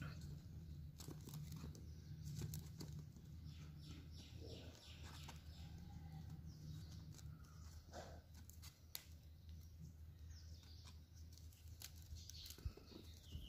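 Faint rustling and small clicks of plastic basket wires being pulled and tightened through a knot by hand, over a low steady hum.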